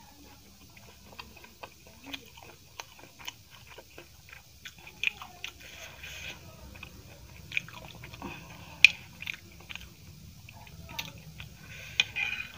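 Close-miked biting and chewing of a large momo: wet mouth smacks and clicks come irregularly throughout. Near the end a steel spoon clinks in a steel bowl of chutney.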